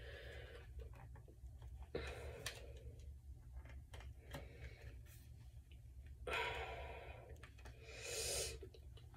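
Quiet handling of a plastic phone case and its packaging: scattered small clicks and rustles, with a few short breaths out, the loudest a little after the middle and near the end.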